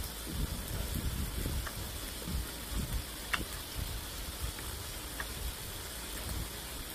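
Pork belly (samgyeopsal) sizzling as it grills: a steady frying hiss with a few sharp pops of spattering fat.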